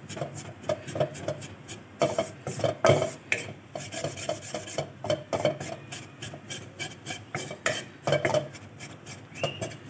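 Wooden spatula scraping and stirring a crumbly butter-and-flour roux around a metal kadai in quick repeated strokes, the roux being cooked to take away the raw flour smell.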